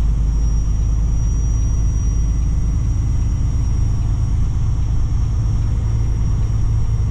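Steady drone of a heavy truck's diesel engine and road noise heard from inside the cab while cruising on the highway, with a faint, steady high whine above it.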